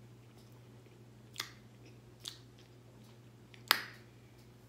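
Close-miked eating: chewing with three sharp, wet mouth smacks spread about a second apart, the last the loudest, over a faint steady low hum.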